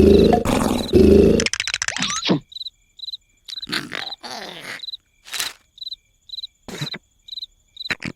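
Cartoon snoring sound effect, a loud low rumbling rasp that stops about a second and a half in. After it, a cricket-like chirp repeats about twice a second, with a few short squeaky cartoon effects in between.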